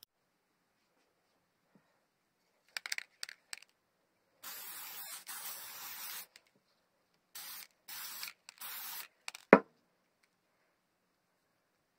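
Aerosol can of spray adhesive: a few short clicks about three seconds in, then a long hiss of spraying lasting about two seconds, followed by three short sprays. A single sharp knock comes near the end of the spraying and is the loudest sound.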